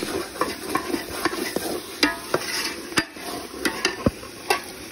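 Steel ladle scraping and clinking irregularly against a steel pot while marinated chicken is stirred into the masala, with light sizzling underneath.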